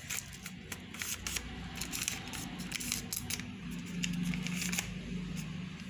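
A sheet of white paper being folded and creased by hand, giving a scattered run of small crinkles and crackles.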